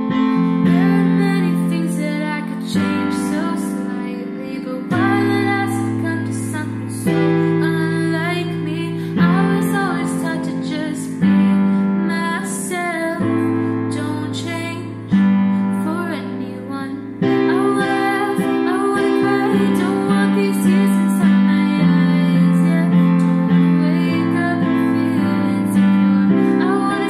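A woman singing solo over piano chords, a new chord struck about every two seconds and left to ring.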